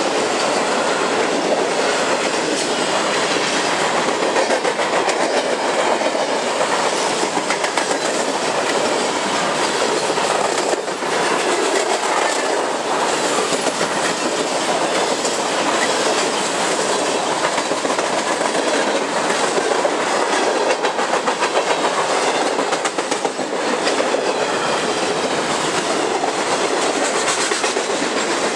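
Freight cars of a long Canadian Pacific train, autoracks then boxcars, rolling past close by: a loud, steady rolling noise with the continual clickety-clack of steel wheels over rail joints.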